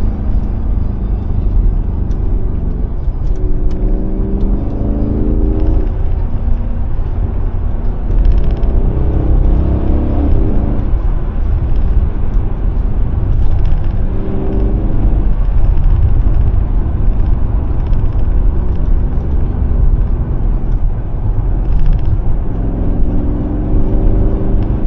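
Mercedes-AMG S63's V8 engine pulling through the revs several times, its pitch climbing and then dropping back at each shift, over a steady low road rumble.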